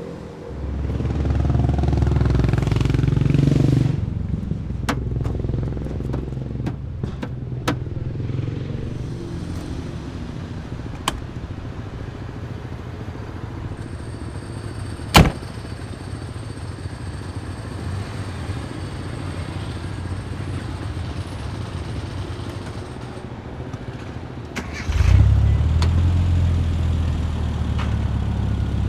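Rover Mini's four-cylinder engine running as the car drives, louder for the first few seconds and again from about 25 seconds in. A few sharp clicks sound over it, the loudest about fifteen seconds in.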